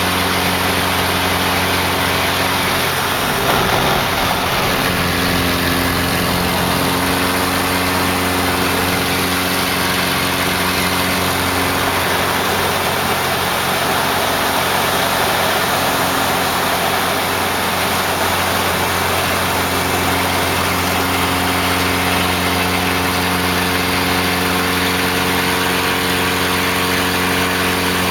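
Laser 230 aerobatic monoplane's piston engine and propeller running steadily under a heavy rush of wind noise. The engine note wavers briefly about three seconds in and again around the middle, as the aircraft banks and rolls through aerobatic manoeuvres.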